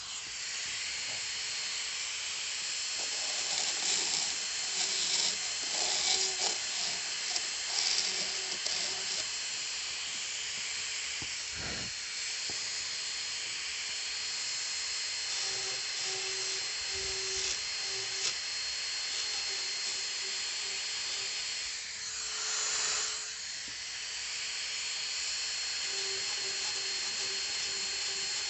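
Dental high-speed handpiece running with a size 2 inverted cone bur, a steady high-pitched whine with hiss, cutting the walls of a class I amalgam cavity in an upper first molar. The whine wavers as the bur bears on the tooth and eases off briefly about three quarters of the way through.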